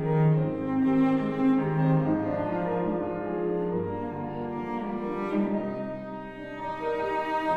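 Live classical chamber music: a cello playing held, bowed notes with piano accompaniment.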